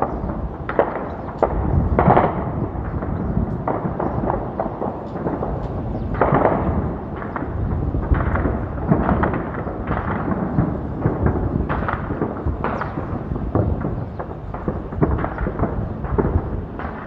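Continuous distant gunfire over a city: an irregular stream of shots and heavier booms that echo, over a steady low rumble, the loudest booms about two and six seconds in.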